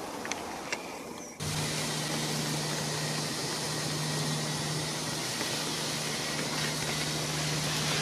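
A swarm of ivy bees buzzing: a steady low hum with a hiss over it, coming in suddenly about a second and a half in after a quieter stretch with two light clicks.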